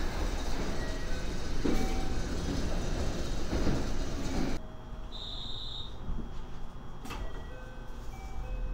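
Electric train at a platform with its sliding doors closing, over the running noise of the train and short chime-like tones. This stops abruptly a little over halfway. A quieter stretch follows with one high beep lasting about a second, then a sharp click.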